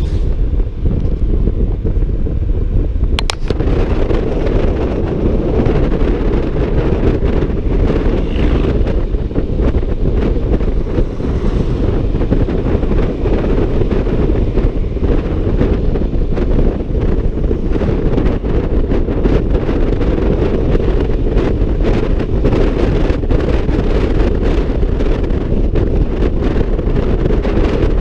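Wind buffeting the microphone of a Honda ADV 150 scooter rider at road speed: a steady low rush, with a brief click about three seconds in.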